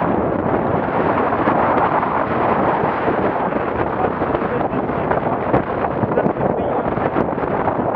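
Loud, steady wind buffeting the microphone in a 25–35 knot gale, over water splashing against the hull of a small motorboat running through chop.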